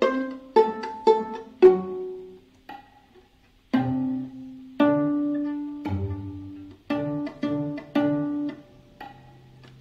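Viola played pizzicato: a run of plucked notes, each with a sharp start and a ringing decay, with a short pause about three seconds in. It is the cello line played an octave higher.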